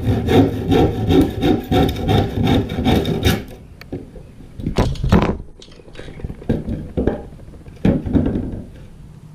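Scrap plywood boards being handled, wood scraping on wood: a fast run of rasping strokes for the first three seconds or so, then a few separate knocks and scrapes.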